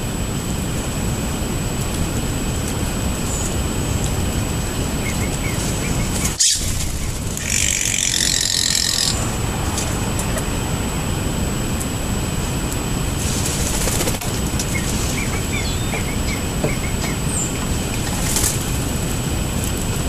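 Steady background rumble with faint, short bird chirps now and then, and a brief harsh burst of high-pitched noise about eight seconds in.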